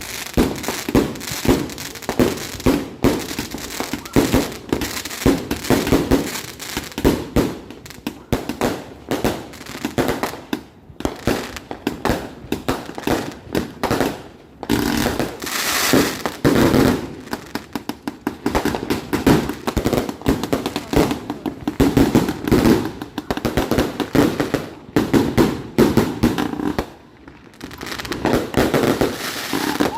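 Fireworks going off in a rapid, continuous barrage of bangs and crackles, with a couple of short lulls and a denser stretch about halfway through.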